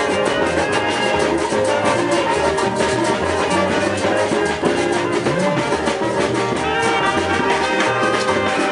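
Brass band music with drums and a steady beat.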